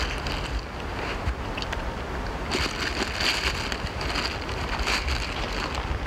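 Wind buffeting the microphone as a steady low rumble, with bursts of hissing rustle about two and a half seconds in and again around five seconds.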